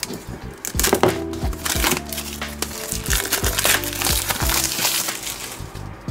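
Soft background music, with the crinkling and rustling of packaging and light clicks and knocks as a tin phone-case box is handled, busiest in the middle.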